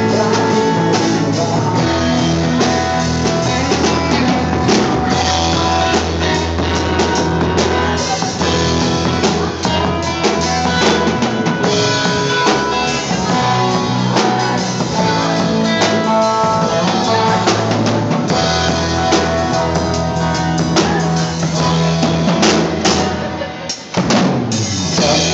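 A band plays an instrumental passage of a worship song, with drum kit and guitar. The music drops briefly about two seconds before the end, then comes back in.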